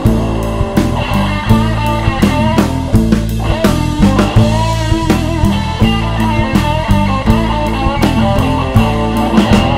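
Studio recording of a rock-blues band playing an instrumental stretch: electric guitar, Fender Stratocaster, over bass guitar and a drum kit keeping a steady beat.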